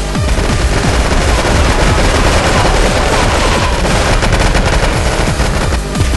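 Continuous rapid automatic gunfire, a dense unbroken rattle of shots.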